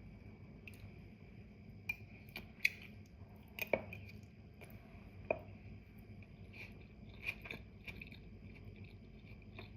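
Faint eating sounds: scattered sharp taps and clicks with soft chewing, over a steady faint hum.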